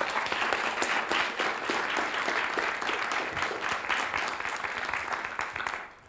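Audience applauding: many hands clapping in a dense, steady run that dies away near the end.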